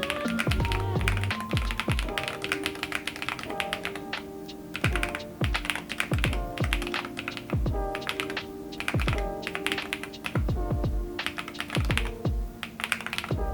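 Typing on an EPOMAKER TH85 80% mechanical keyboard with Milk Blue tactile switches: a quick, irregular run of clacking keystrokes. It plays over background music with a steady beat.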